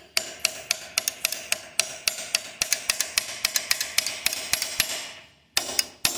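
Rapid metallic tapping, about three to four sharp clinks a second, as a hot heatsink gripped in channel-lock pliers is knocked against a steel hammerhead to shake the copper loose. The tapping stops a little after five seconds in and starts again just before the end.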